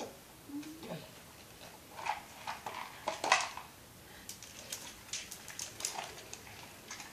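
A large dog moving close on a tiled floor and nosing at food, with scattered sharp clicks and small knocks, the loudest a little past three seconds in. A short falling vocal sound comes about half a second in.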